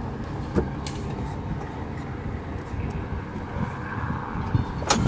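Tiger Moth biplane's inverted four-cylinder engine being started by hand-swinging the propeller, then running at a low idle. There is a sharp knock near the end.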